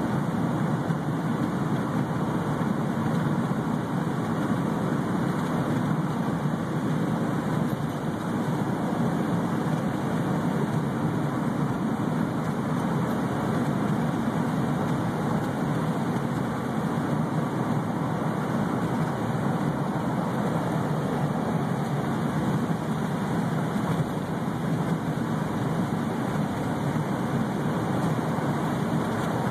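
Steady, even road and engine drone heard from inside a vehicle's cabin while it drives at highway speed.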